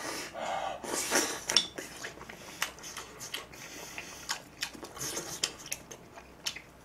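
A person eating close to the microphone: a soft slurp of broth from a small plate in the first second or so, then chewing, with scattered light clicks of chopsticks and a spoon against the dishes.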